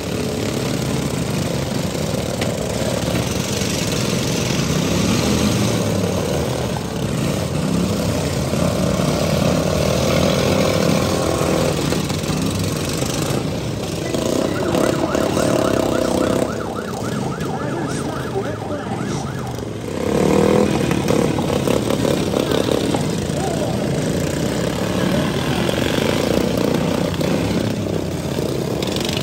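Several pro-modified riding lawn mower engines running together, their pitches rising and falling as they rev and ease off in a steady dense din.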